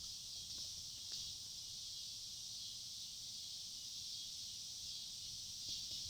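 Steady high-pitched chirring of crickets, a night insect chorus, with a faint click about a second in.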